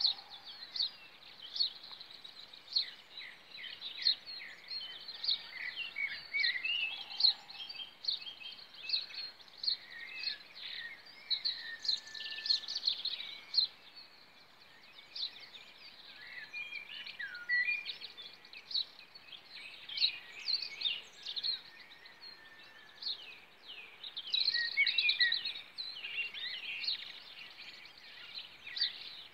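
Wild birds singing and calling, many short high chirps and trills overlapping, busiest near the end.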